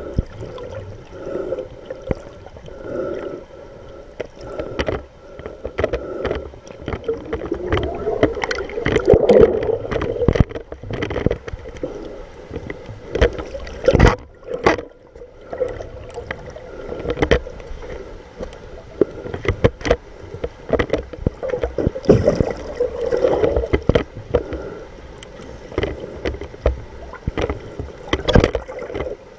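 Water heard through a submerged camera: muffled, uneven rushing and gurgling, with many sharp knocks and clicks and a faint steady tone underneath.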